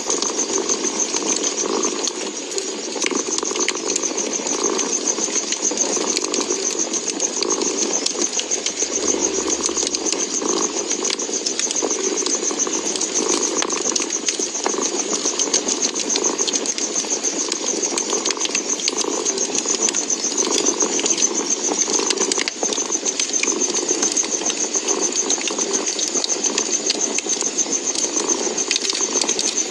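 A cat purring steadily, swelling and easing with each breath, over a wood fire's steady hiss with scattered small crackles and pops.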